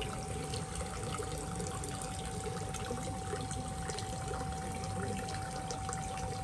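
Water trickling and splashing in koi show vats, over a steady thin tone.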